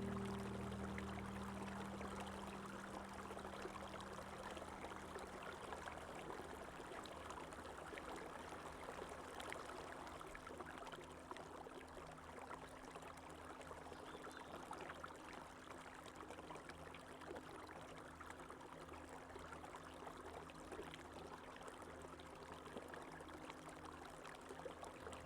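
Running water: a stream flowing and trickling steadily, with fine splashing. Soft background music fades out over the first few seconds.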